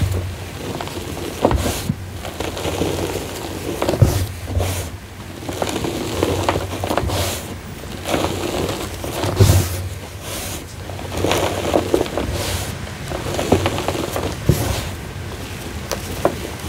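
Rubber-gloved hands squeezing and crumbling clumps of gym chalk mixed with fine sand, giving irregular soft crunching and crackling with now and then a sharper crack, and powder sifting through the fingers.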